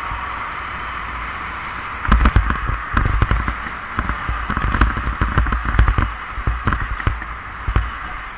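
Steady wind and road hiss on a bicycle rider's camera; about two seconds in, a run of irregular knocks and crackles starts and goes on for about six seconds before dying away near the end.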